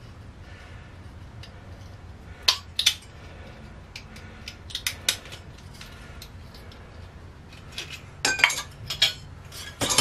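Metal clinks and rattles as a microwave magnetron with its finned metal body is handled and its ring magnet is worked off: scattered sharp clicks a few at a time, busiest near the end, over a faint steady low hum.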